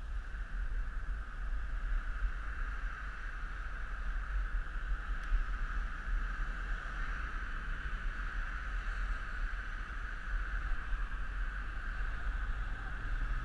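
Wind buffeting the microphone of a camera riding on a moving bicycle, a fluctuating low rumble, with a steady higher-pitched hum underneath.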